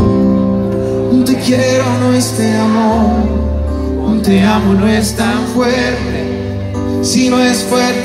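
Live band playing a slow romantic pop ballad through a concert PA, heard from the audience: sustained keyboard chords and bass notes with a melody line above them that bends in pitch.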